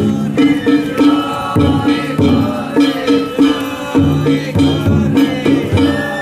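Danjiri festival music: taiko drum strokes under ringing hand gongs, with a bamboo flute playing long, held high notes.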